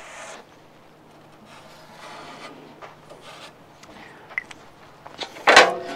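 Marker pen rubbing and scratching along the edge of an aluminium template as it is traced onto an aluminium plate, with a few light taps and a louder sudden sound near the end.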